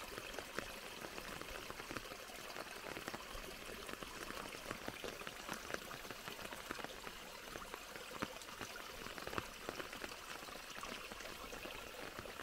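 Small stream of water trickling and splashing from a stone pond outlet into a muddy pool: a faint, steady splashing flecked with many small droplet ticks. It is a weak flow, too little to carry on to the next pond.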